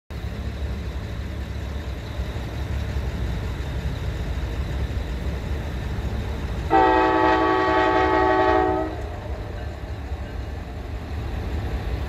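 Norfolk Southern freight train's diesel locomotives rumbling steadily. Nearly seven seconds in, the lead locomotive's air horn sounds one long blast of about two seconds, a chord of several notes.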